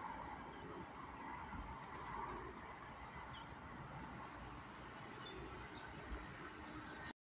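Faint outdoor background hum with a few short, high bird chirps, about three, spread through. The sound cuts off suddenly near the end.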